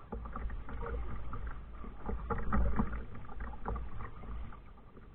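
Kayak on the water: irregular splashes and knocks of paddling, with a steady low rumble underneath.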